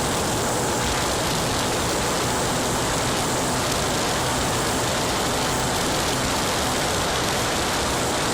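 Steady rush of wind and road noise on the microphone while riding an Aprilia Ditech scooter, with a faint steady engine tone under it.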